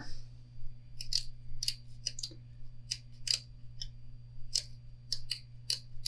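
Small pointed scissors snipping the loose ends off fiberglass mesh tape: a dozen or so short, crisp snips at an uneven pace.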